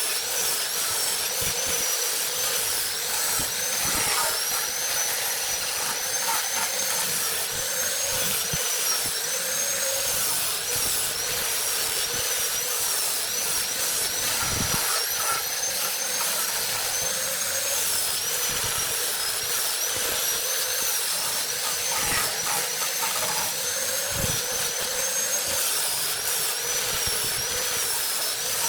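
High-speed power tool running with a high-pitched whine that dips briefly again and again as it comes under load against the wood.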